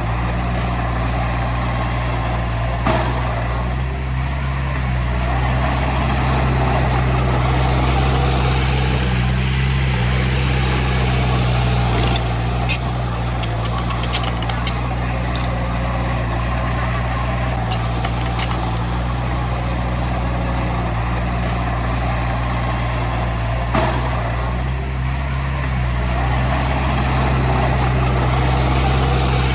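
Heavy diesel engine of earthmoving machinery running steadily, with a few sharp knocks and clanks, most of them in a cluster around the middle.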